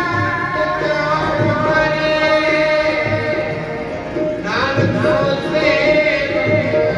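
Sikh devotional kirtan music: held instrumental tones and drum strokes, with a singing voice coming in about halfway.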